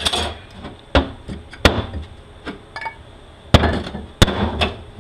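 Sharp metal knocks and clanks, about five loud ones and some lighter clicks, as steel clutch parts of a 46RE automatic transmission (the forward clutch drum and piston) are handled and knocked apart by hand.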